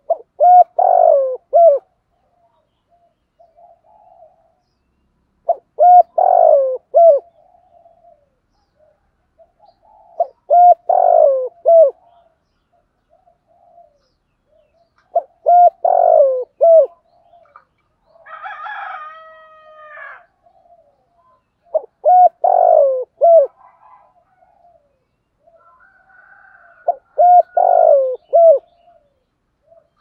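Spotted dove cooing its 'thúc gù' call: six phrases of three or four coos each, repeated about every five seconds. A fainter call of a different kind comes once, about two-thirds of the way through.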